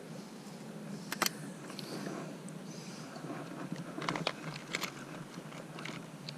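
Small sharp clicks and light rustling from handling fishing tackle close to the microphone: a pair about a second in and a few more around four to five seconds, over a low steady hum.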